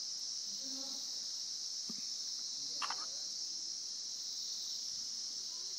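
A steady, high-pitched insect chorus, shrill and unbroken, with faint voices behind it and a brief sharper sound about three seconds in.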